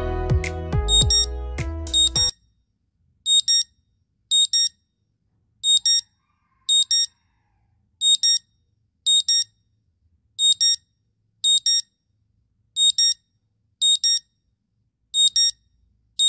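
Smartphone alarm ringing through the phone's speaker: short, high-pitched electronic beeps in quick doubles, two doubles about a second apart, the pattern repeating every couple of seconds. A melodic phone tune with bass overlaps the first beeps and cuts off suddenly about two seconds in.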